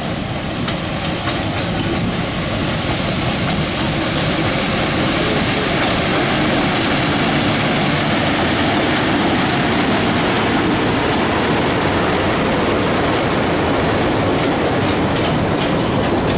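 Passenger train hauled by a diesel-electric locomotive passing close by, the locomotive and then its coaches rolling along the track. The rumble grows louder over the first few seconds and then holds steady.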